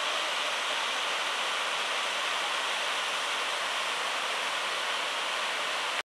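Small forest waterfall cascading over rock ledges into a stream: a steady rush of falling water.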